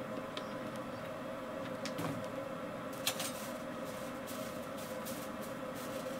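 Steady hum of a coke forge fire with its air blower running, and scattered light crackles from about three seconds in as the fire heats a steel pan of oil.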